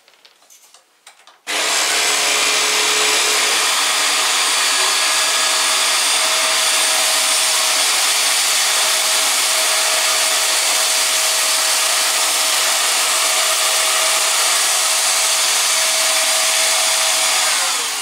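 Vax Mach Air Revive upright bagless vacuum cleaner switched on about a second and a half in and running steadily at full suction with its brush bar off, sucking up oats from a laminate floor. Near the end it is switched off and the motor winds down with a falling whine.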